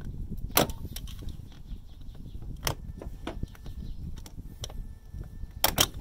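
Pliers and a steel spring-band hose clamp clicking sharply a few times as the clamp is squeezed and worked onto a coolant hose, the loudest a quick double click near the end. A steady low rumble runs underneath.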